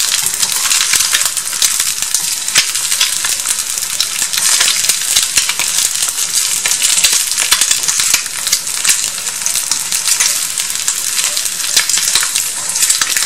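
Egg frying in hot oil in a small cast-iron skillet: a steady, loud sizzle with constant fine crackling and spitting of the oil.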